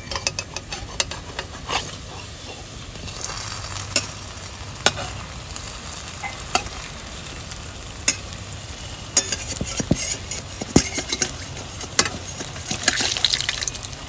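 Chhana balls deep-frying in oil in a metal kadai, a steady sizzle, with a metal spatula knocking and scraping against the pan every second or so as the balls are turned.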